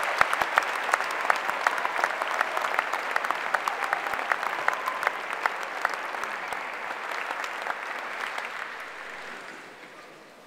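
A large audience clapping, the applause dying away over the last couple of seconds.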